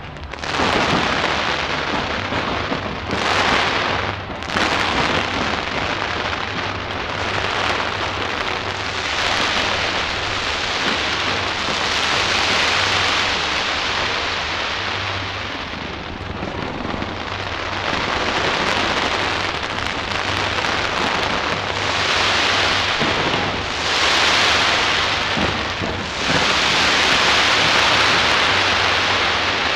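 New Year's fireworks fired from a skyscraper, heard at close range: a loud, dense crackle and hiss of many bursts at once, swelling and easing several times and loudest near the end.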